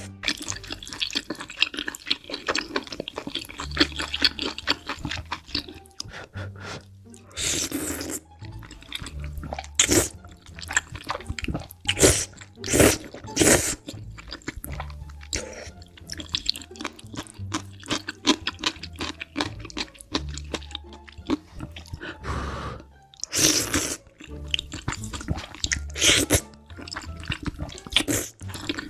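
Close-up eating of noodles: a dense run of wet chewing and smacking, with several short slurps, over background music.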